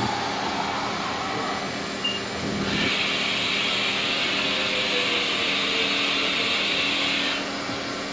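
Haas VF-3 vertical machining center running a dry-run tool-change cycle: axis drives whine with gliding pitch, and from about three seconds in a steady hiss starts and stops suddenly some four and a half seconds later.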